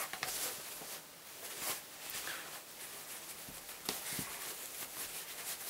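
Faint rustling of cotton fabric being pulled and smoothed over a padded coat hanger, with a few soft taps a little past the middle.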